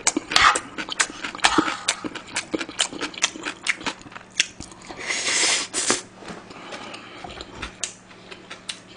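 Close-miked chewing of a mouthful of fried rice: wet mouth clicks and smacks throughout, with a breathy rush of air lasting about a second around the middle.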